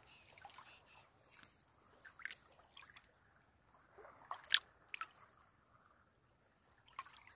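Water sloshing and dripping close to the microphone, with scattered small drips and splashes; the sharpest comes about four and a half seconds in.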